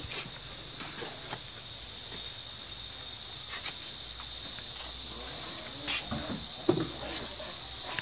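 Steady high-pitched insect chorus, with scattered soft clicks and knocks as a cloth-wrapped block of fresh tofu is unwrapped and lifted from its wooden mould; one sharper knock about two-thirds of the way through.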